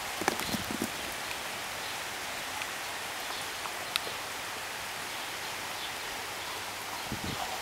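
Steady hiss of light rain falling. A few low thumps come just after the start and again near the end, and a single sharp tick is heard about four seconds in.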